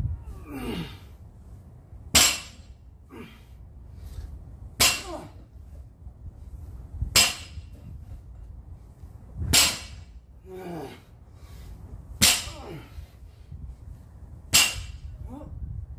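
A bumper-plate-loaded barbell clanks sharply six times, about every two and a half seconds, once per rep. Each clank is followed by a short grunt from the lifter that falls in pitch.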